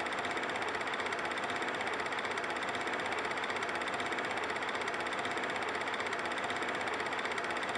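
Film projector running, a steady rapid mechanical clatter.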